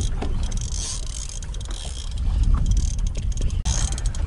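Wind rumbling on the microphone and a high hiss of wind and sea aboard an open fishing boat. A run of faint clicks near the end comes from the spinning reel being cranked against a hooked fish.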